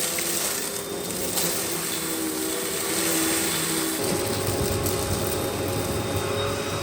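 Russell Hobbs Athena Pet vacuum cleaner running with a steady motor whine. About four seconds in, its pitch shifts slightly and a low rumble comes in.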